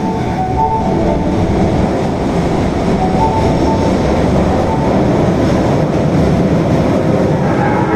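Tanimachi Line subway car running, with a loud steady rumble of wheels and running gear. Short tones sound at the start and about three seconds in, and a set of higher steady tones comes in near the end.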